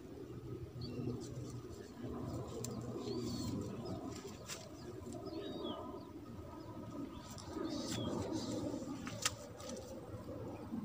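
Birds calling in a dense, ongoing chorus of low cooing notes, with a few short high chirps. A sharp click stands out about nine seconds in.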